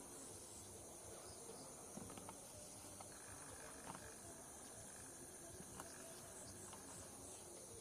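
Faint, steady high-pitched chorus of insects, with a lower steady note joining about three seconds in and stopping shortly before the end, and a few soft ticks scattered through it.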